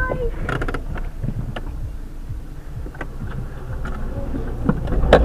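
Low, steady vehicle rumble with scattered light clicks and knocks, as picked up by a car-mounted dashcam; a held horn-like tone cuts off just after the start.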